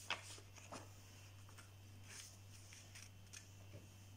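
Faint rustles and soft ticks of a sheet of white paper being handled and folded on a table, the sharpest tick just after the start, over a low steady hum.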